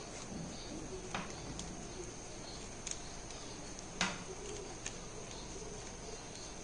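A few light clicks and taps from handling a paintbrush and small paint jars while painting, the loudest about four seconds in. They sit over faint background noise with a steady high hiss and a low wavering sound.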